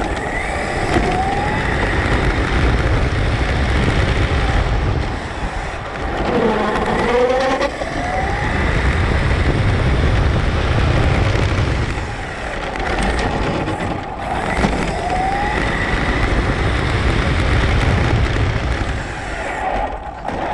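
Onboard sound of a battery-electric brushless RC car driving on asphalt: the motor's whine rises in pitch several times as it accelerates, over a steady rumble of tyres and wind.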